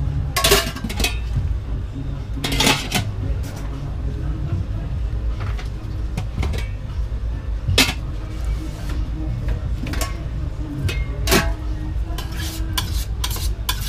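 Metal cooking utensils clinking against cookware, with single sharp clinks every couple of seconds and a quick run of them near the end, over a steady low rumble.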